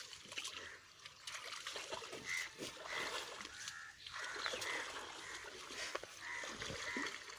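Water splashing and trickling, with a series of short, repeated animal calls from about two seconds in.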